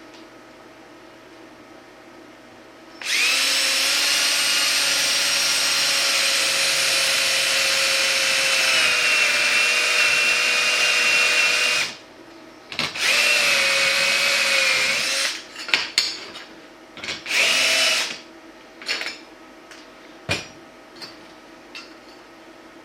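Electric drill drilling holes through a strip of aluminum. It runs for about nine seconds, its pitch dipping slightly partway through, then runs again for about two seconds, followed by a few short blips and light clicks.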